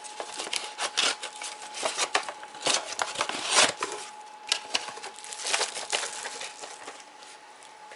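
Cardboard boxes and plastic packaging being handled: irregular crinkling, rustling and scraping, busy at first and thinning out near the end.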